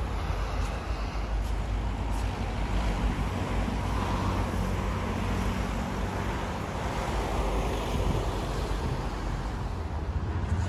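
Outdoor street ambience: steady road traffic noise mixed with a low wind rumble on the microphone.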